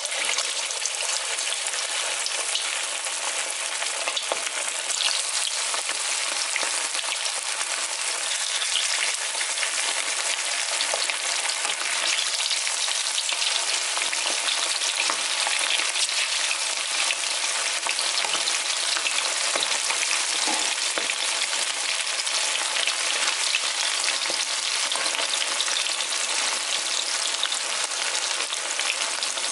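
Pieces of masala-marinated chicken deep-frying in well-heated oil, a steady, dense sizzle and crackle.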